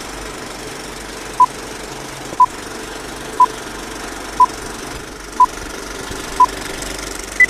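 Electronic countdown beeps: six short beeps of the same pitch, one a second, then a final higher beep, over a steady background hum.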